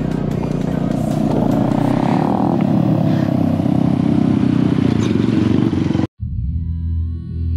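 Motorcycle engines running as bikes ride by. About six seconds in the sound cuts off suddenly and calm background music takes over.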